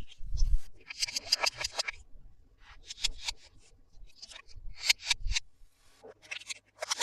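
Toy packaging being opened: crisp crackling, snipping and snapping of plastic and cardboard in several short bursts, with a couple of soft thumps.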